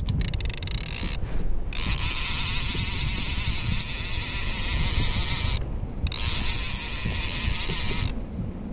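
Fishing reel's ratchet clicking fast as line runs off the spool. The separate clicks quickly run together into a steady high buzz, which breaks off briefly about a second in, at about five and a half seconds, and near the end.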